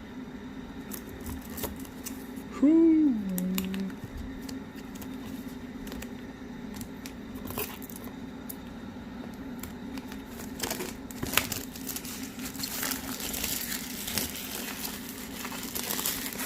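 Plastic wrapping on a product box being cut and pulled off, with scattered crinkling, tearing and small clicks that get busier over the last few seconds. About three seconds in, a short hummed vocal sound falling in pitch is the loudest moment.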